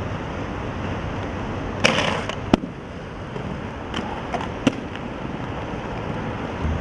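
Skateboard on a granite plaza: a short scrape about two seconds in, then a sharp loud clack of the board, and a few lighter board clacks a couple of seconds later, over a steady low traffic hum.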